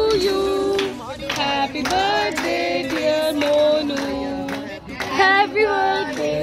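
A group singing to music, with people clapping along.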